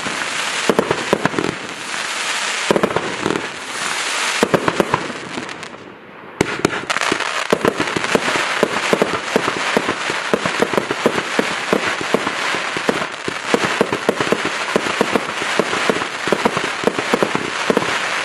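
X-CITE Night Ghost fireworks cake firing: shots going up and bursting with constant crackling and popping. There is a short lull about six seconds in, then a dense run of rapid crackles and pops.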